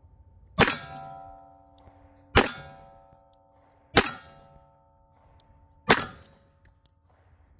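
Five shots from a 4-inch Colt Python revolver firing .38 Special +P 158-grain semi-wadcutter hollow points, evenly paced about every 1.7 seconds. Each shot is followed by a metallic ring that fades over about a second, typical of a steel target being hit.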